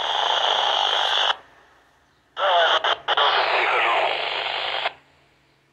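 Yaesu FT-60 handheld receiver tuned to the UHF satcom channel 255.560 MHz picking up two transmissions: bursts of heavy hiss with a garbled voice in them, each switching on and cutting off abruptly as the carrier comes and goes. The first lasts about a second; the second starts about a second later, runs about two and a half seconds and drops out briefly twice near its start.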